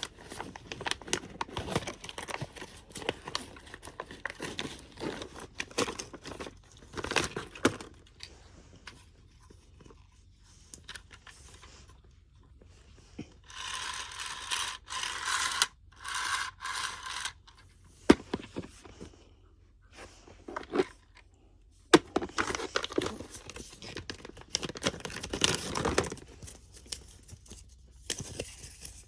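Toy packaging being opened by hand: plastic crinkling, tearing and scraping in irregular bursts, with a denser hissing tear midway and two sharp clicks later on.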